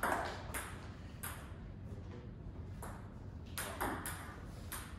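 Table tennis ball clicking against paddles and the table during a rally: several sharp hits in the first second or so, a gap, then another run of hits in the second half.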